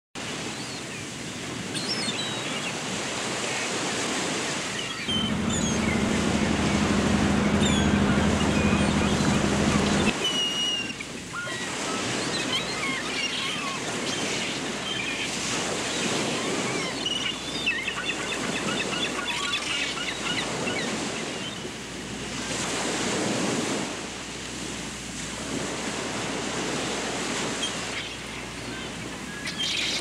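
Sea waves washing steadily, with many short bird chirps over them. For about five seconds near the start a low steady hum runs underneath, making that the loudest stretch.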